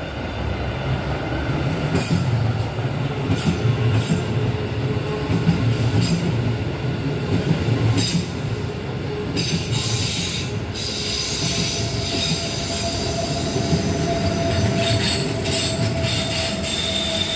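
Electric passenger train of panoramic coaches passing at close range: a steady rumble of wheels on the rails with repeated hissing and squealing surges from the wheels. A steady whine joins about halfway through and holds to the end.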